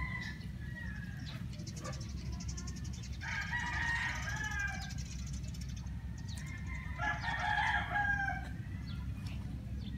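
A rooster crowing twice, each crow about a second and a half long, the first about three seconds in and the second about seven seconds in, over a steady low rumble.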